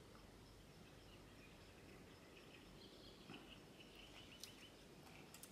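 Near silence: faint outdoor ambience with a few faint bird chirps about halfway through.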